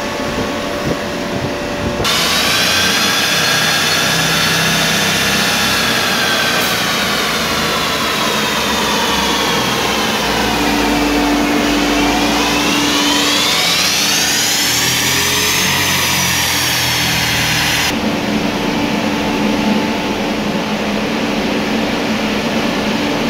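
Volkswagen Passat B6 running hard on a chassis dynamometer during a power run: engine and rollers whine under load, the pitch sinking slowly and then climbing again about two-thirds of the way through. A steadier, lower hum comes before and after.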